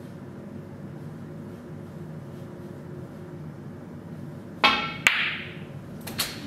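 A snooker shot: two sharp clacks about half a second apart as the cue strikes the white and the white hits a red, which is potted. A few lighter knocks follow near the end.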